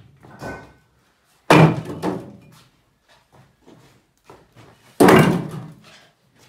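Old bricks thrown into a steel two-wheeled hand cart: two loud thuds about three and a half seconds apart, each trailing off in a short clatter.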